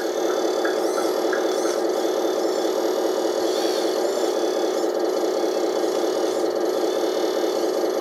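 1/14-scale Komatsu WA480 RC wheel loader running steadily, its electric hydraulic pump driven at raised motor speed by mix control, together with the sound module's simulated diesel engine through the model's small speaker.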